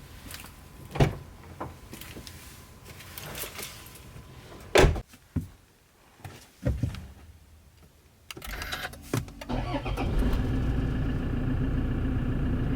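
A few clunks and knocks, then about eight seconds in a Toyota Land Cruiser Prado's engine starts and settles into a steady idle.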